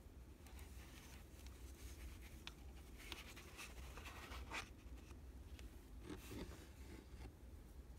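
Faint rustling and light clicks of cotton-gloved hands handling two wristwatches on nylon straps, busiest around the middle, over a low steady hum.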